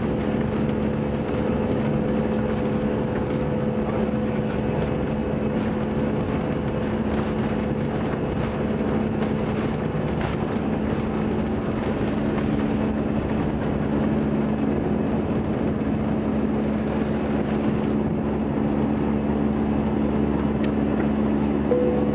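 Airbus A318 jet engines at takeoff thrust, heard from inside the cabin over the wing: a steady hum with a constant low tone. A rattling rumble from the wheels on the runway fills the first half, then fades as the aircraft lifts off.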